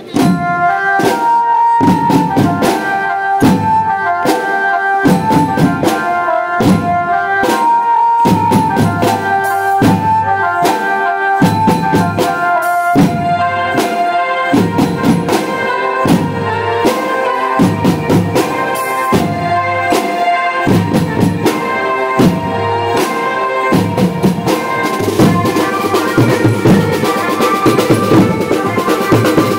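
A Mumbai-style banjo party band playing: a melody line over a steady, driving drum beat. It starts abruptly and runs loud throughout.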